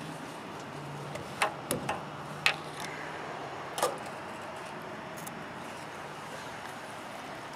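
Several sharp knocks and clicks, about five in the first four seconds, over a steady low hum that fades out about three seconds in.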